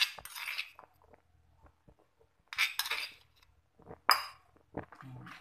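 A metal spoon scraping and clinking against a stone mortar and bowl as pounded shallots and ginger are scooped out. It comes in three short bouts, and the sharpest, ringing clink comes about four seconds in.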